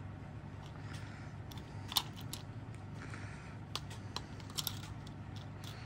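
A few sharp clicks and light handling sounds as a battery is fitted into the clock's quartz movement.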